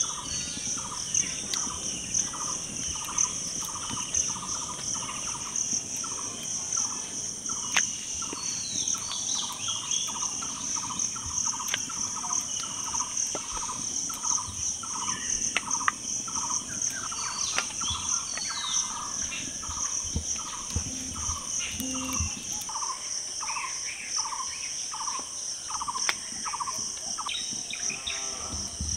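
Rural outdoor ambience: a steady, high insect drone of crickets, with a bird repeating one short note about twice a second until near the end, and other birds chirping now and then.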